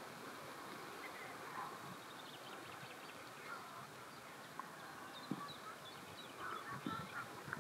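Faint steady outdoor background with a few faint short chirps now and then, more of them near the end.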